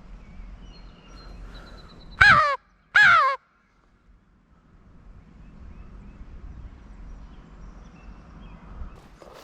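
Two loud, harsh caws, each falling in pitch, blown on a Hunter's Specialties Strut Pro-Line crow call. It is used as a turkey locator call, meant to make gobblers answer.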